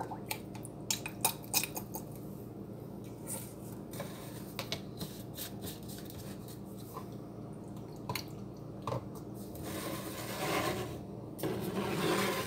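Plastic bottles and a pipette handled on a countertop: scattered small clicks and taps, then rubbing and scraping near the end as the bottles are moved about.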